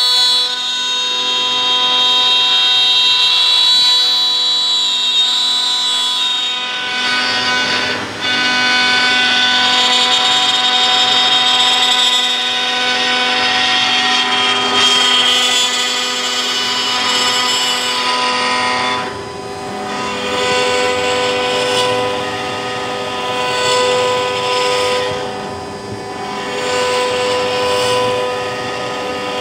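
CNC router spindle and bit cutting a wooden blank turning in a rotary chuck: a loud, steady high whine over the rasp of the cut. The whine's pitch shifts a few times as the machine moves.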